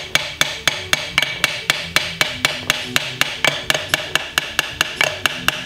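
A hand hammer striking metal in quick, steady blows, about four or five a second, each blow with a short metallic ring.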